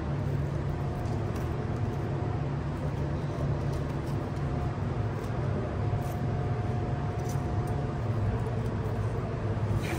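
Steady low hum and rumble of commercial kitchen equipment running, with a faint thin tone that comes and goes above it.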